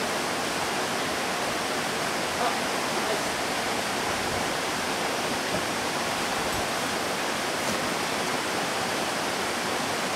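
A steady rush of flowing water, even and unbroken.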